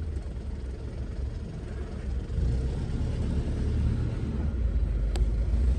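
Low rumble of a car in motion heard from inside the cabin, steady road and engine noise that grows a little louder about halfway through, with a single sharp click near the end.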